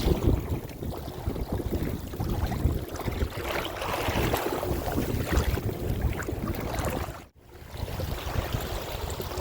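Wind buffeting the microphone over water swishing along a kayak under way. The sound drops out abruptly for a moment about seven seconds in.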